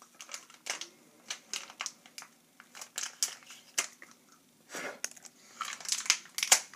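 Stiff plastic packaging of a laptop RAM module crinkling and snapping in an irregular run of sharp crackles as it is twisted, pried and bitten open.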